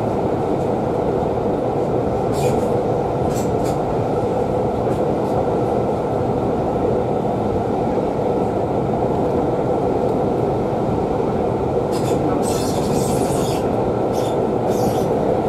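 Steady rumble of a passenger carriage running at speed, heard from inside the coach, with a few short sharp clicks and a brief hiss about twelve seconds in.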